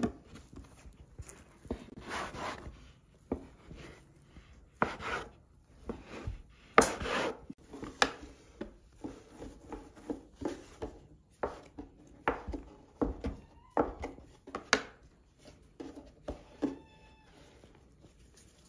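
Hands working dough on a wooden board: the dough is rolled into a log and divided into pieces, with an irregular run of soft rubbing strokes and knocks on the wood, about one a second.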